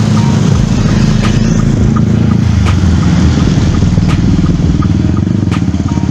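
Motorcycle engine running steadily while riding, heard from on or beside the bike, with a sharp tick about every second and a half.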